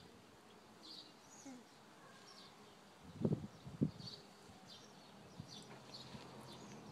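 Quiet outdoor background with faint, short high chirps scattered throughout, and a few dull low thumps a little past the middle.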